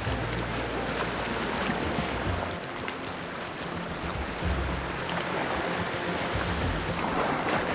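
Ocean surf washing against coastal rocks: a steady rushing of water, with irregular low rumbling.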